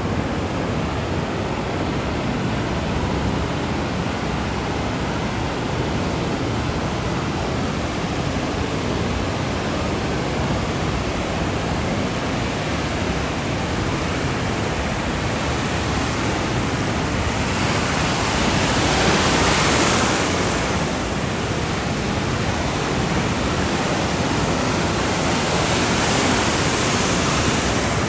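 Ocean surf: a steady rush of waves washing in, with one wave swelling louder about two-thirds of the way through and another near the end.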